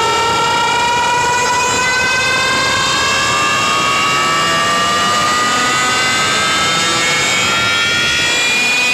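A loud, buzzy pitched tone with many overtones, rising slowly and steadily in pitch throughout: a siren-like riser effect from a DJ sound-check track.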